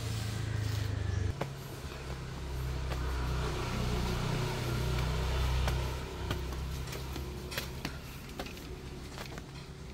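Low engine rumble of a motor vehicle going past, growing louder for about six seconds and then falling away, with a few light ticks and taps near the end.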